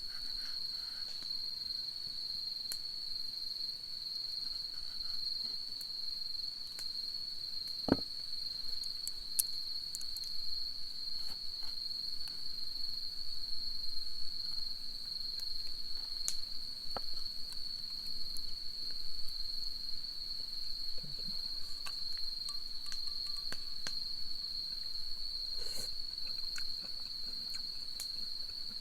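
A chorus of insects trilling steadily at one high pitch, with scattered faint clicks and one sharper click about eight seconds in.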